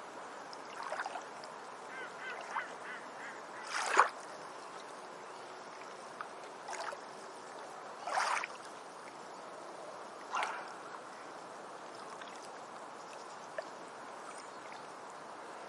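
Jungle ambience: a steady rush of flowing stream water under short, separate bird calls every couple of seconds, the loudest about four seconds in and a longer one a little past eight seconds.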